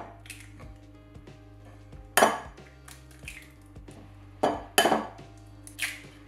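Eggs knocked against the rim of a glass mixing bowl to crack them: several sharp clinks of shell on glass, about 2 s in and again around 4.5 to 5 s, over soft background music.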